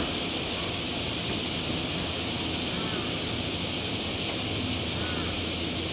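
Steady outdoor railway-station background noise: a constant high hiss over a low hum, with a few faint short chirps now and then.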